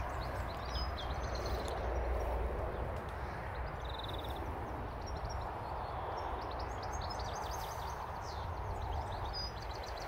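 Small birds chirping and twittering, with a short trill about four seconds in, over a steady outdoor rushing noise and low rumble.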